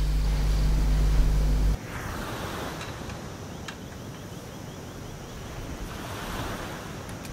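A steady low hum cuts off abruptly just under two seconds in. Ocean surf follows, two waves washing in, with some wind.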